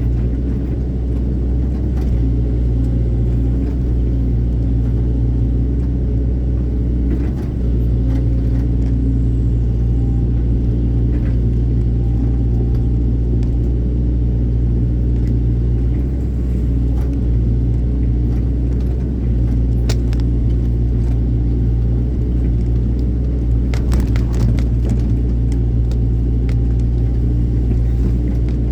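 Excavator's diesel engine running steadily with a low, even drone, with scattered clicks and a short cluster of sharp knocks near the end.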